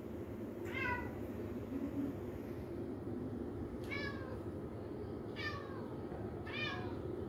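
Domestic cat meowing four times, short meows that each fall in pitch, over a steady low hum.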